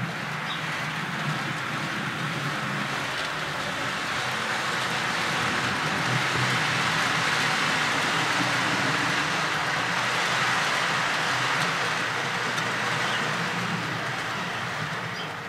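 HO-scale model train, a Jouef BB 36000 locomotive hauling Roco flat wagons, running past on the layout track. Its wheels make a steady rolling rush on the rails that swells to its loudest midway and fades as the last wagons go by.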